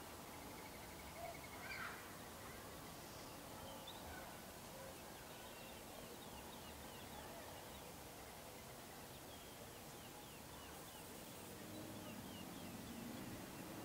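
Faint, soft peeping of Gambel's quail chicks brooding under the hen: runs of short high chirps, with one slightly louder call about two seconds in.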